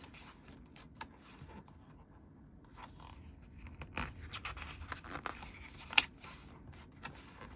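Pages of a thick photobook being turned and handled: soft paper rustles and scrapes, with one sharp click about six seconds in.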